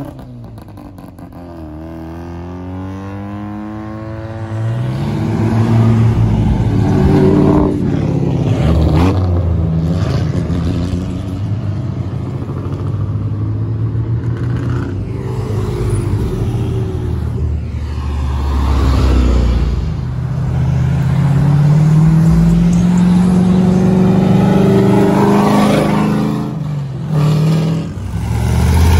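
Cars pulling away one after another and driving past, their engines rising in pitch several times as they accelerate, with one long rising pull in the second half.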